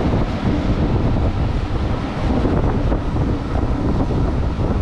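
Passenger train running along the track: a steady rumble from the wheels and carriage, with wind noise on the microphone.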